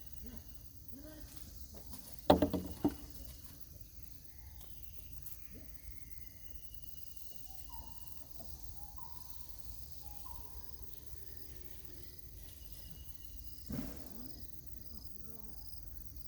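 Insects chirping steadily in regular pulses, with a sudden loud monkey vocal burst of three quick pulses about two seconds in and a weaker one near the end.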